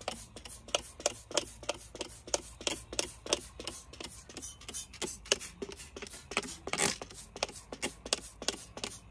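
Hand trigger spray bottle pumped rapidly, about three short spritzes a second.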